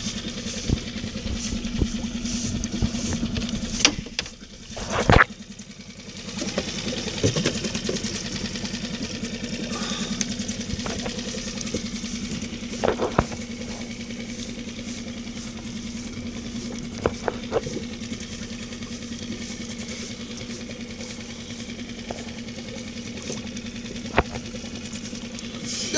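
Boat engine idling steadily, with scattered clicks and knocks over it and one louder knock about five seconds in.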